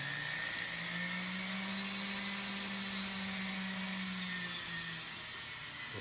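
Flex shaft rotary tool running steadily with a 3 mm round burr as it grinds into a silicone rubber mold, a thin high whine over a low motor hum. The pitch steps up slightly just under a second in and drops back near the end. Its user thinks the ball burr is worn and needs replacing.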